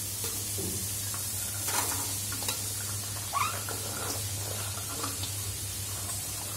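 Onions, green chillies and prawns sizzling in oil in a steel wok, over a steady low hum, with a few brief rising squeaks about two and three seconds in.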